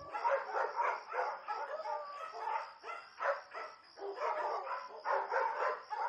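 Several dogs barking in quick, overlapping barks, several a second.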